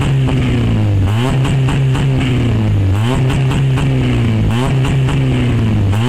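Citroën Saxo VTS's four-cylinder engine held at about 4,000 rpm against Omex launch control, sounding through a 2-inch Supersprint straight-through exhaust. The steady loud note wavers slightly every second or so, with rapid crackles and pops as the limiter cuts the ignition.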